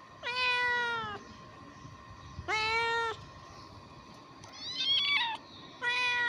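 Ginger kittens meowing: four drawn-out meows a second or so apart, the third higher and wavering, the last beginning near the end. These are hungry kittens begging for food.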